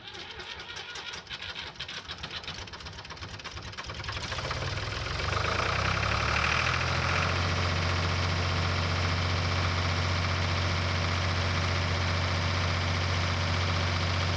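Ford 2000 tractor's three-cylinder diesel engine cranking for about four seconds, catching about five seconds in and settling into a steady idle. It starts after standing two weeks, the battery now holding its charge.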